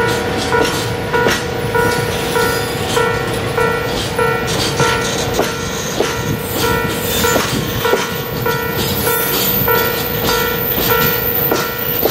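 Container freight train of flatcars rolling past, wheels clicking over the rail joints. Under it run a steady hum and a repeating electronic beep, a little under two beeps a second.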